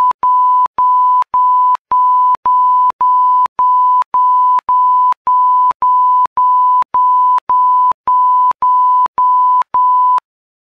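Edited-in 1 kHz bleep tone, a censor-style beep, sounded as a rapid string of about eighteen half-second beeps with tiny clicking breaks between them. It stops abruptly about ten seconds in.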